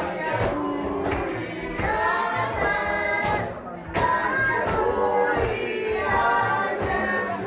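Music: a group of voices singing held notes together, with regular percussive hits keeping a beat.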